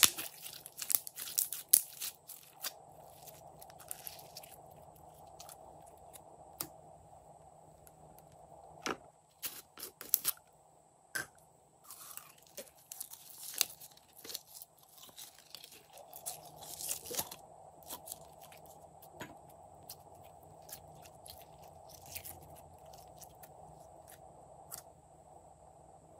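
Hands squeezing and stretching glossy slime, then squeezing glitter slime out of a soft plastic cup: irregular sticky crackles and pops in clusters, over a faint steady hum.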